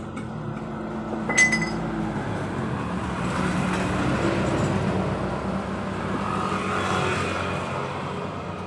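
A motor vehicle engine running steadily, growing louder over the first few seconds and easing off near the end, with a sharp metallic click about a second and a half in.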